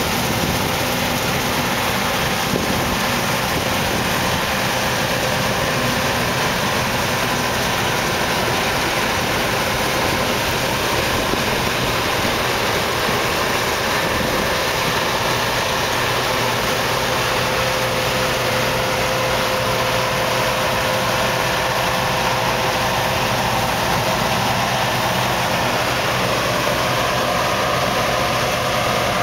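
John Deere 1177 combine harvester running steadily as it cuts and threshes barley: a constant mechanical drone with a few faint steady tones over a dense rushing noise.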